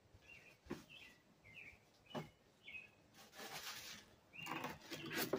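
Faint bird chirping, short calls about every half second. In the second half, rustling and handling noise with a few clicks.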